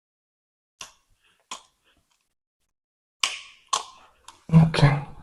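Footsteps on a hard tiled floor: a few short, sharp taps, two faint ones early and louder ones from about three seconds in.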